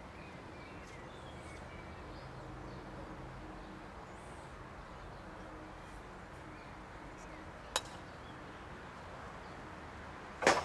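Quiet outdoor background with a single sharp click about three-quarters of the way through and a louder knock near the end.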